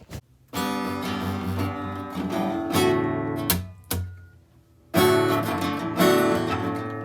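Acoustic guitar strumming chords as a song's introduction, with a short pause about four seconds in before the strumming resumes.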